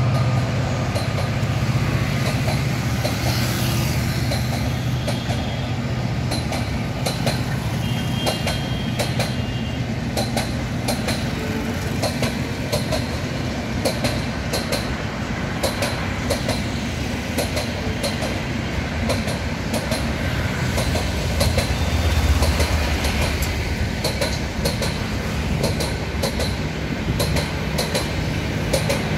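Coaches of a passenger train rolling past at speed, the wheels clicking again and again over the rail joints above a steady low hum.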